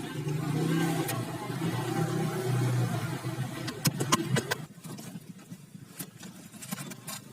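An engine running steadily with a low hum, which stops about four and a half seconds in; a few sharp clicks and knocks follow.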